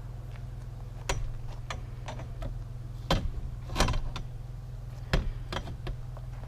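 Several irregular knocks and clatters, the loudest about three and four seconds in, over a steady low hum.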